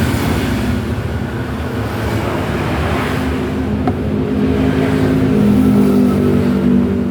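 A motor vehicle's engine running, its hum growing louder about five seconds in.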